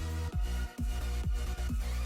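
Electronic dance music with a steady kick-drum beat, about two beats a second, over heavy bass.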